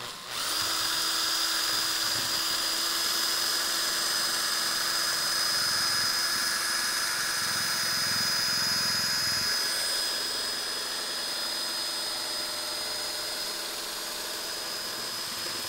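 Cordless drill running steadily, spinning a swift nut attachment that winds a nut down a long M8 threaded bar, with a held motor whine. It starts about half a second in and gets a little quieter in the last third.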